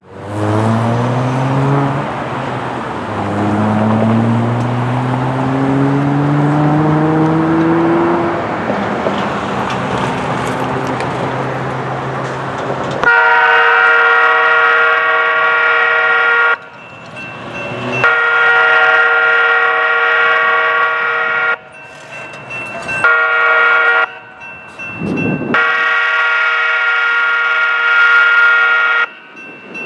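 CPKC freight locomotive air horn sounding the grade-crossing signal: two long blasts, a short one, then a long one, each a chord of several notes. Before it, an engine revs up, its pitch rising in two sweeps.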